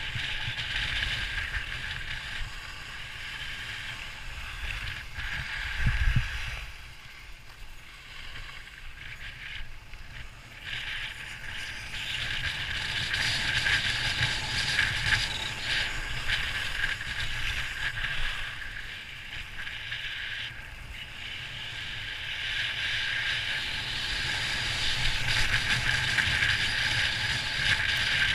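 Skis or a board sliding downhill on packed snow: a steady scraping hiss that grows louder and softer in long stretches, over a low wind rumble on the microphone, with one thump about six seconds in.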